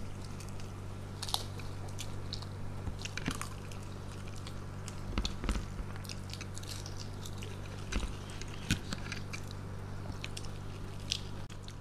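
Two people chewing and biting mouthfuls of dahi fuchka (puri shells filled and topped with yogurt), wet mouth sounds with scattered sharp clicks and crackles, over a steady low hum.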